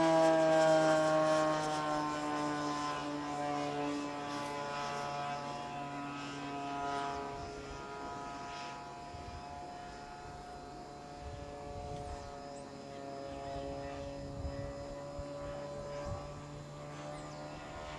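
Radio-controlled model airplane flying overhead, its motor and propeller making a buzzing tone that slowly drops in pitch and fades as it moves away.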